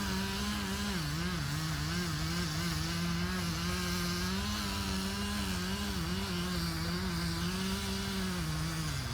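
Two-stroke chainsaw running at high revs, its pitch sagging briefly now and then as the chain bites into the wood, with a deeper dip near the end.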